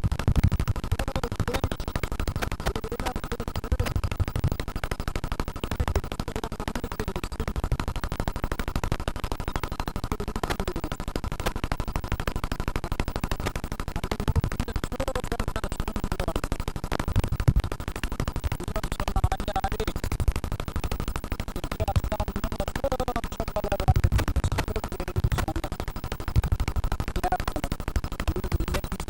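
Broken, distorted audio track: dense crackling and buzzing with a steady high hum, under which muffled voices can faintly be made out.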